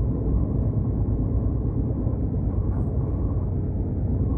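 Steady low rumble of a moving train, with no distinct knocks or horn.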